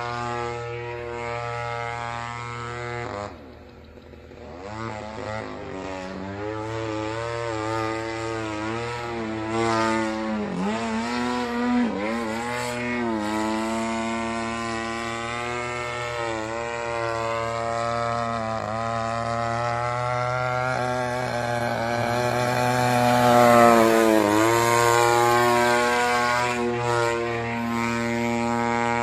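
Radio-controlled aerobatic model airplane's motor and propeller running overhead, the pitch rising and falling with throttle and manoeuvres. It drops away briefly about three seconds in, and is loudest a few seconds before the end, where the pitch dips and climbs again.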